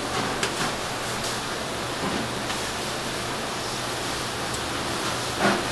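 Steady rushing kitchen noise with a low hum, with a few light clicks of metal tongs against the steel wok rack and tray, and a brief louder clatter near the end.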